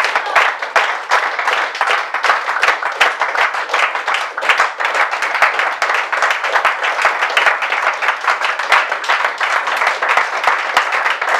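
A small seated audience clapping steadily at the end of a song: dense, even applause from a few dozen pairs of hands.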